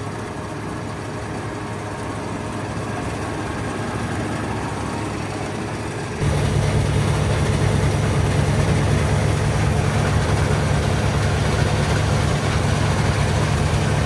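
Massey Ferguson combine harvester running with its threshing gear turning: a steady mechanical run of engine, belts and chains. It gets louder about six seconds in, with a heavier low hum.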